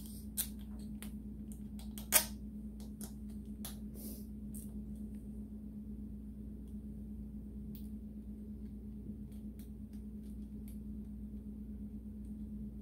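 Sharp clicks and taps of battery-tender leads and wire connectors being handled and clipped on, thickest in the first few seconds with one loud click about two seconds in, then a few faint ticks. A steady low hum runs underneath.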